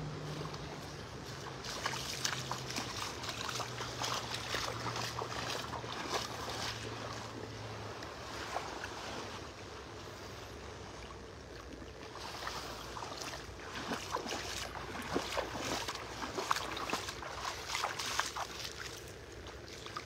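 Outdoor shoreline ambience: wind buffeting the microphone over gentle water at the water's edge. The low hum of a distant motorboat engine runs through the first several seconds, sinking slightly in pitch before it fades out.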